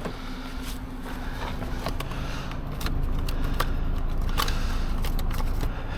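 A vehicle engine idling with a steady low hum that grows a little louder about halfway through, with a few faint clicks over it.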